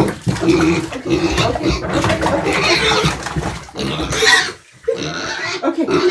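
Young pet pig vocalizing loudly and almost without pause, 'cursing' in protest at being bathed, with a couple of short breaks about two thirds of the way through.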